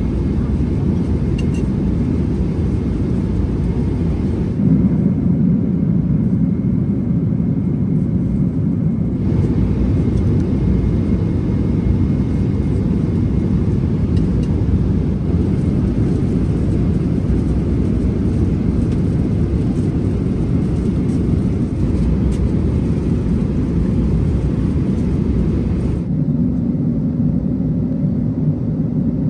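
Steady low rumble inside the cabin of a Boeing 777-200ER in flight, from its engines and the airflow around it. Its tone shifts slightly a few times.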